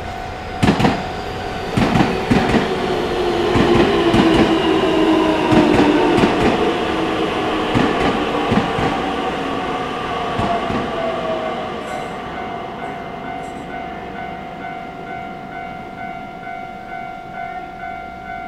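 Keio Inokashira Line train passing over a level crossing: its wheels click over the rail joints in a quick, uneven series while a whine falls slowly in pitch. The crossing's warning bell rings throughout and goes on ringing in an even rhythm after the train has passed, about eleven seconds in.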